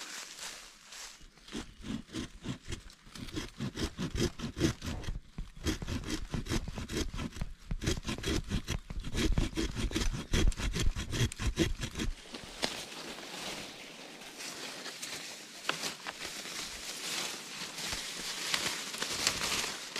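Multitool's small saw blade cutting through a green branch with rapid back-and-forth strokes, which stop about twelve seconds in; after that, leaves and twigs rustle as the cut branch is handled.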